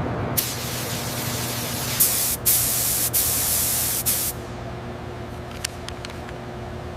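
Pressurised spray hissing, as from a spray-painting gun, growing louder about two seconds in with a few brief breaks, then cutting off a little past the middle. A low steady hum runs underneath.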